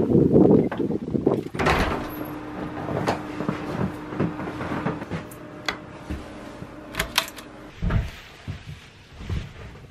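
Wind on the microphone at first, then a barn door's chain and padlock clicking and rattling as they are undone and the door is opened, followed by a few low footsteps near the end.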